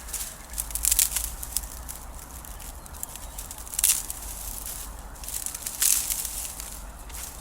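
Dry grass and thin twigs crackling as a small campfire burns, with irregular clicks and a few louder snaps, about one, four and six seconds in.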